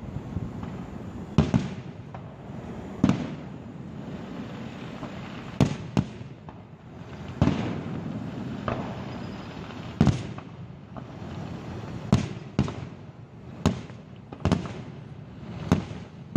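Aerial fireworks shells bursting: more than a dozen loud bangs at irregular gaps of about half a second to two seconds, some in quick pairs, each followed by a rumbling echo.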